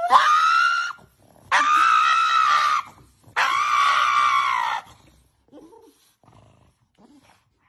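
Pug screaming three times, long high-pitched cries of about a second each, in protest at having its nails trimmed.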